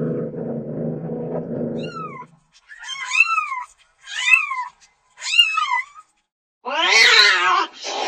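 Domestic cat vocalising: a low steady purr for about two seconds, then four short, high meows that rise and fall in pitch, followed by a longer, louder, lower meow and a brief last call near the end.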